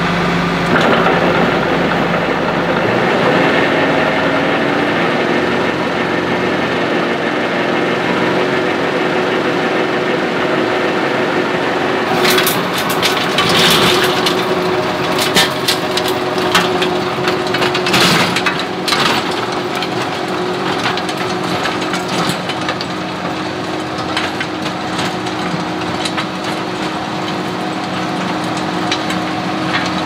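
John Deere 4066R tractor's diesel engine running under load while its Rhino Ag Rebel 72-inch rototiller churns through weedy ground, the engine picking up speed in the first few seconds. Partway through, for several seconds, the tiller tines crack and snap through sticks and woody brush.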